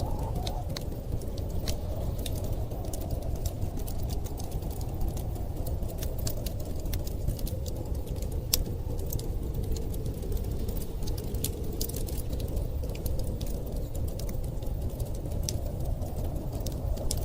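Wood fire crackling with many sharp, irregular pops over a steady winter-storm wind, whose low rush carries a faint tone that wavers in pitch.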